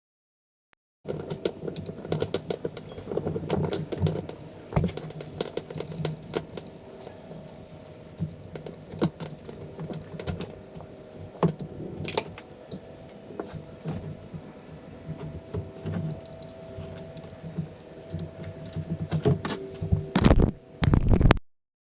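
Metal hand tools and engine parts clinking, rattling and knocking irregularly during engine teardown, over a faint steady hum, with a few louder knocks near the end before it cuts off abruptly.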